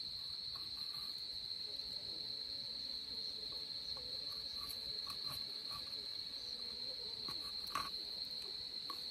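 Crickets chirping in a steady high trill. Under it come faint scrapes and ticks of a knife blade shaving thin curls from split firewood for kindling, with one sharper click about eight seconds in.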